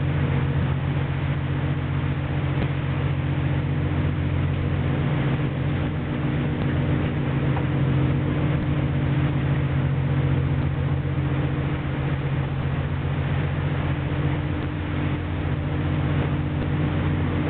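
Steady drone of a longline fishing vessel's engine and machinery: a low hum of several steady tones under a constant rushing hiss.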